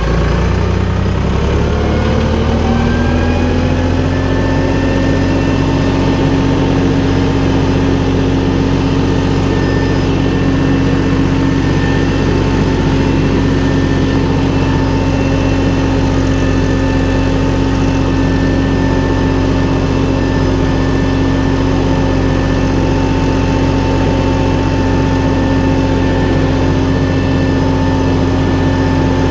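Valtra BF-75 tractor's diesel engine picking up revs over the first few seconds, then running steadily at a constant speed.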